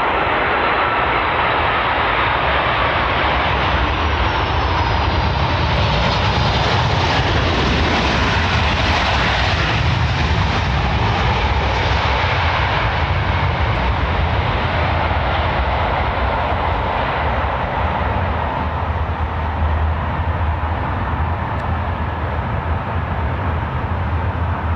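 A Boeing 747's four jet engines on its landing approach, a loud steady jet noise. Thin whining tones glide down in pitch a few seconds in as the aircraft passes, and the high hiss is strongest about nine seconds in, then eases off.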